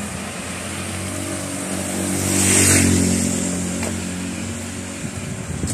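A motor vehicle passing close by on wet asphalt. The engine hum swells and fades, dropping slightly in pitch as it goes by, with tyre hiss on the wet road loudest just under three seconds in.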